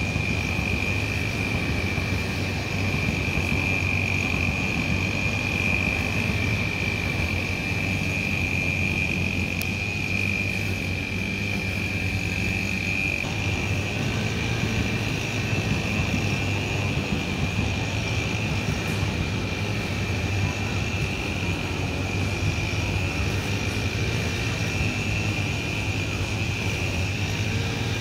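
Steady mechanical hum with a constant high whine over it, the whine weakening briefly about halfway through, while electric commuter trains pass on the line beside the park.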